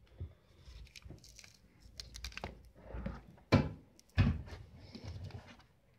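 Hands working the plastic detergent dispenser in a dishwasher door as its clips are pressed into place: scattered light clicks and rattles, with two sharp knocks a little past halfway.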